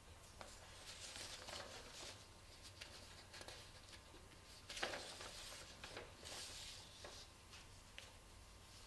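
Faint rustling of paper sheets being handled and shuffled, with a sharper rustle about five seconds in.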